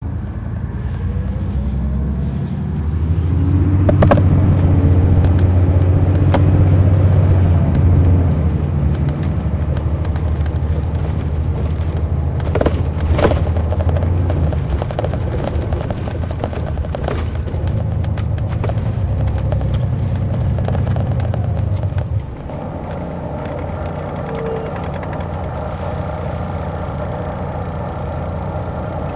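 Detroit Diesel Series 60 diesel engine of an MCI D4000 coach, heard from the rear of the bus, pulling under load with a rising tone and loudest a few seconds in, with knocks and rattles through the body. About 22 seconds in it drops suddenly and runs on quieter and steadier.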